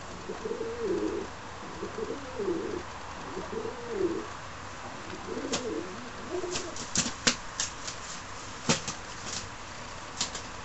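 Pigeons cooing in repeated low, wavering calls for the first few seconds. Then comes a run of sharp flicks and claps from a young feral pigeon flapping its wings.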